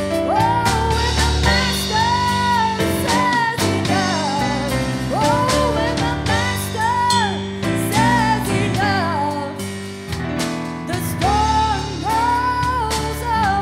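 A woman singing a gospel song in long, held phrases, with live piano and band accompaniment.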